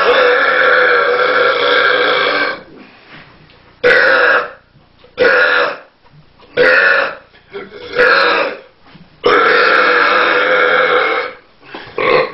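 A person burping loudly and on purpose: one long belch of a couple of seconds, then four short burps in quick succession, then another long belch of about two seconds.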